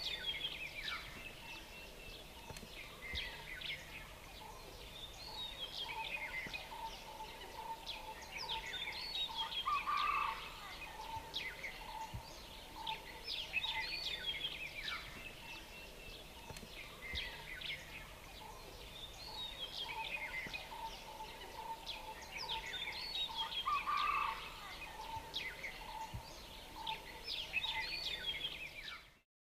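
Birds chirping and calling in a steady chorus of short, quick notes, with one short note repeating at an even pace underneath.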